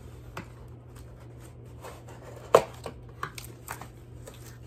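Hands handling items and packaging: scattered small clicks and rustles, with one sharper knock about two and a half seconds in. A steady low hum of a ceiling fan runs underneath.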